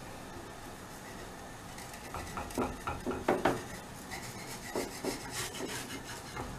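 A spatula scraping and knocking against a hot tawa in short, irregular strokes starting about two seconds in, loosening the roasting thalipeeth from the griddle before it is flipped.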